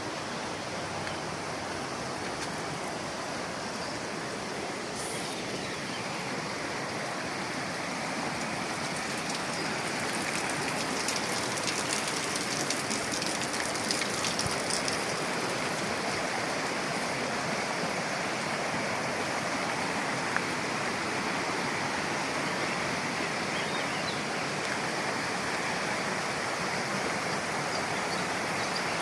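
Mountain river water rushing and splashing steadily, a little louder from about a third of the way in.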